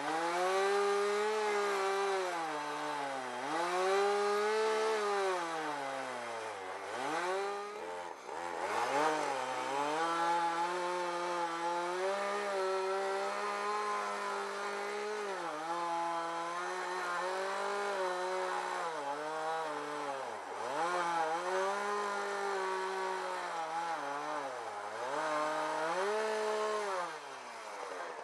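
Husqvarna 372XP two-stroke chainsaw under load, ripping a pine log lengthwise in an Alaskan chainsaw mill. Its pitch sags and recovers repeatedly as the cut bogs the engine down, with a few sharp dips.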